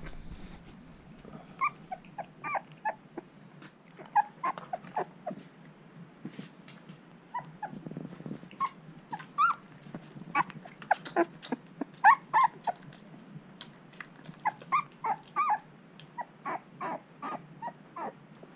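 A twelve-day-old Shar Pei puppy crying: a long run of short, high whimpering squeaks, coming in clusters.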